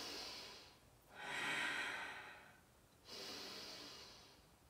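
A woman's slow, audible breaths: three soft swells of rushing air, each lasting a second or more, with short pauses between.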